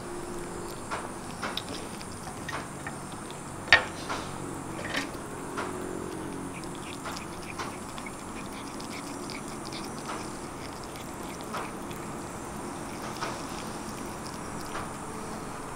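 Kitten chewing and tearing at a piece of grilled chicken: irregular short clicks and smacks from its mouth and teeth, with one sharper click a little under four seconds in.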